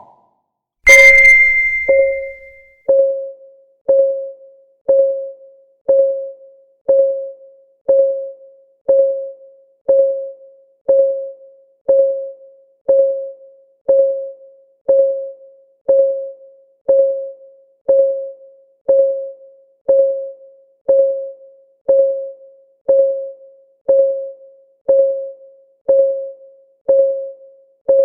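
Countdown timer's clock-ticking sound: a short, pitched tick once a second, each one dying away quickly. About a second in, a louder ringing tone sounds for about two seconds over the first ticks.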